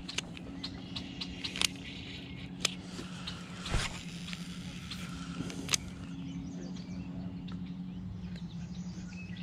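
Quiet outdoor ambience: a steady low hum, faint bird chirps and a few light clicks scattered through it.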